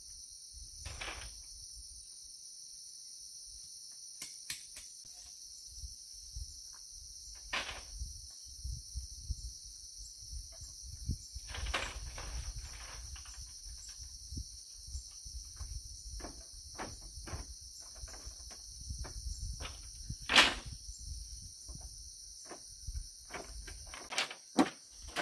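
Steady high-pitched insect chorus, with scattered knocks and clicks over it and one louder knock about twenty seconds in.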